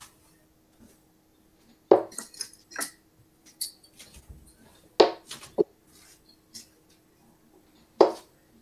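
Three darts thrown at a bristle dartboard, each striking with a sharp knock about three seconds apart, with light metallic clinks after them.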